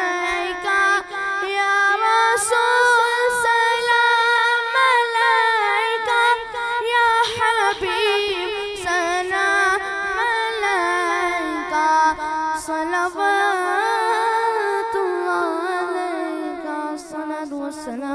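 A boy singing an Islamic devotional salam unaccompanied into a microphone, holding long ornamented notes that waver in pitch. The line sinks lower near the end.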